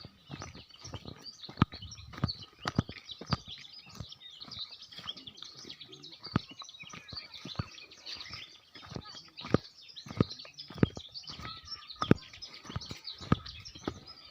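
Many small birds chirping and twittering without pause. Irregular sharp thuds of footsteps on a trail cut through it, several to a second at times, and these are the loudest sounds.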